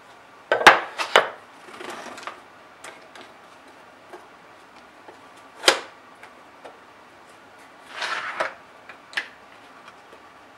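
Sharp clicks and knocks of 3D-printed plastic featherboards being shifted and set on a wooden router-table fence, and of a wooden board being laid on the table against them. They come in a quick cluster near the start, a single sharp knock midway, and a few more near the end.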